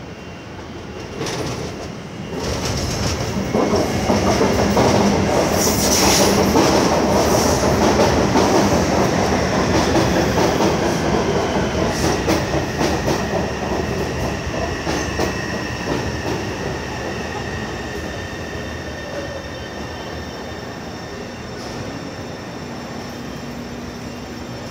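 A Taipei Metro C301 electric train, fitted with retrofitted propulsion equipment, running along the platform with wheel and rail noise. It grows loud over the first few seconds, then slowly fades, and a thin whine from its motors comes in about halfway through.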